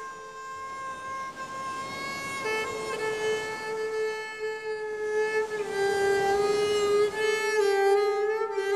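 Music: a bowed string instrument playing a slow melody of long held notes that slide from one pitch to the next, growing louder about halfway through.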